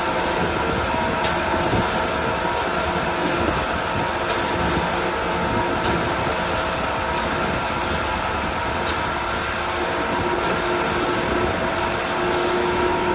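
Self-loading concrete mixer running steadily: engine and machinery noise with a steady whine.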